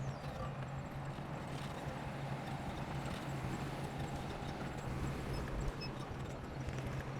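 Heavy-equipment diesel engine running steadily with a constant low hum, with faint intermittent clanks and clicks over it.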